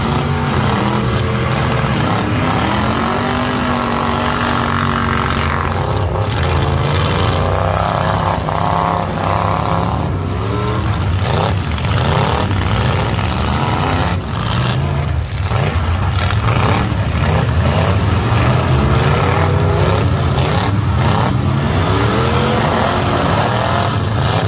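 Several full-size pickup truck engines running hard in a demolition derby, revving up and down over and over, with a number of sharp crunching impacts as the trucks ram each other.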